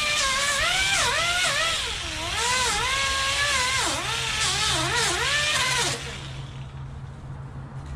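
Air-powered 3-inch right-angle grinder with a 36-grit disc grinding down the hard molded edge of a foam car-seat cushion. Its whine dips and recovers in pitch as it is pressed into the foam and eased off. It shuts off about six seconds in, leaving a low steady hum.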